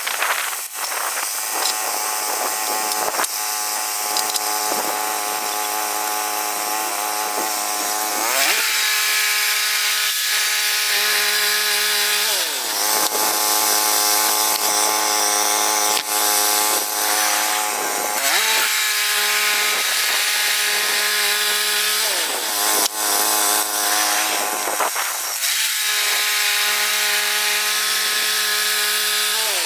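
Woodland Mills HM122 bandsaw mill running, its gas engine driving the band blade through a red cedar log. The engine note holds steady for several seconds, then glides to a new pitch about four times as the load and throttle change, with a hiss of sawing and a few knocks.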